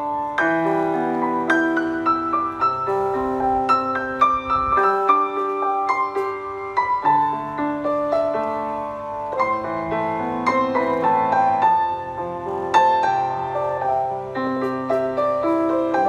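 Background piano music: single struck notes forming a melody over held lower notes.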